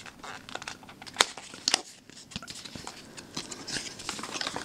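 Small cardboard box being opened by hand: the card flaps rubbing and crinkling, with scattered light clicks and one sharper click about a second in.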